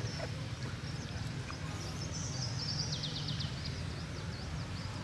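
Outdoor ambience: a steady low rumble with faint high chirps, and a short fast trill from about two to three and a half seconds in.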